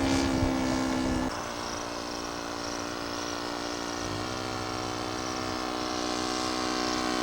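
Radio-control model airplane's Laser 70 four-stroke glow engine running steadily. Its pitch drops about a second in as the throttle comes back, then rises again about four seconds in.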